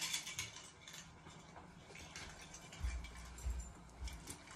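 Light clicking and rustling, then a few low thuds about three seconds in as a person walks past close by: footsteps.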